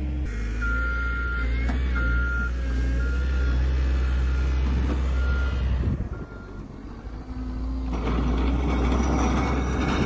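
Caterpillar 906 compact wheel loader's diesel engine running steadily while its reverse alarm beeps repeatedly for about the first five seconds. After a short dip around six seconds in, the loader comes back louder and rougher as it pushes snow with its pusher blade.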